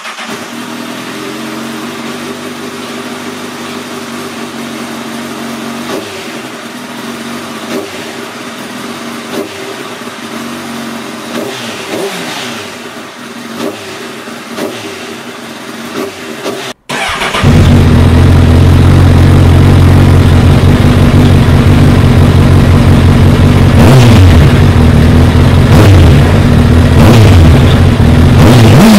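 2014 Honda CBR1000RR's inline-four engine running through a TSR slip-on muffler, idling with several quick throttle blips. A little past halfway it turns much louder and distorted, recorded close to the exhaust, still idling between blips.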